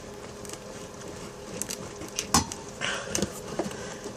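A tight-fitting post being forced down into a freshly hand-drilled hole in wood: faint scraping and rubbing, with a few sharp knocks in the second half.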